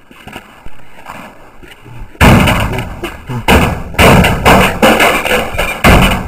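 Wooden planks beating on the sheet-metal casing of an old washing machine: a run of loud bangs, several a second, beginning about two seconds in.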